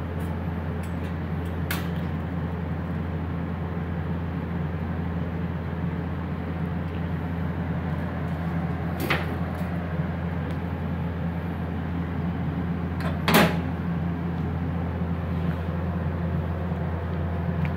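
Migweld 350SEF MIG welder switched on and standing idle, giving a steady low hum. A few sharp knocks come through it, the loudest about thirteen seconds in.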